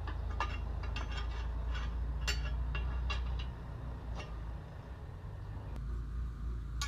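Loose metal parts of a slurry tanker valve handle clinking and knocking against each other about six times as they are handled during fitting, over a steady low rumble.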